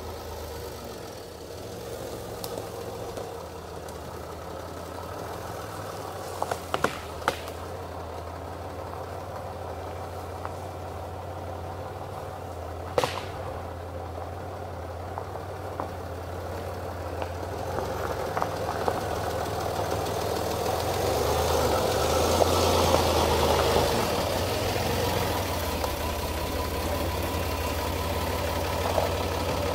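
Land Rover Discovery engine running at low revs as the vehicle crawls over rough ground towing a trailer, growing louder as it draws near about twenty seconds in. A few sharp knocks and clicks stand out along the way, the sharpest about halfway through.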